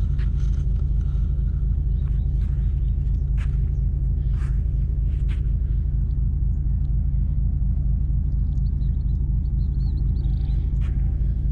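Wind rumbling on the microphone, a steady low buffeting throughout, with a few faint high bird chirps about nine to ten seconds in.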